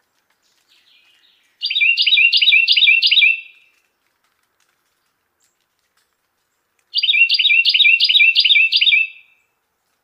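Carolina wren singing two songs, each a rapid run of five or six identical repeated phrases, about three a second, the second song starting about five seconds after the first. A few faint soft notes come just before the first song.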